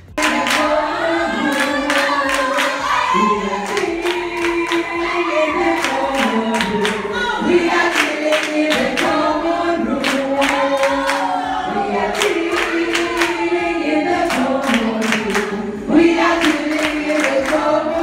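A crowd singing together in unison, with hand claps throughout.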